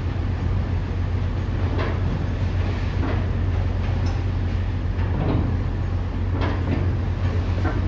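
Heavy machinery: a steady low engine rumble with irregular metallic clanks and rattles about every second or so.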